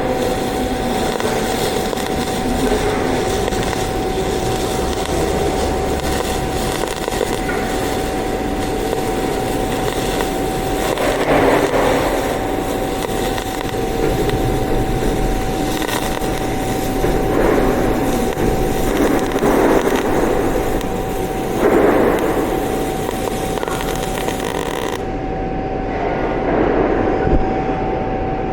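Solid-wire MIG (GMAW) welding arc running steadily, with a constant high whine underneath and a few louder swells.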